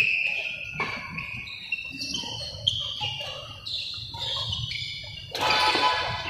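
Badminton racket striking a shuttlecock sharply at the start and again a little under three seconds in, over a run of high, steady notes that step up and down in pitch.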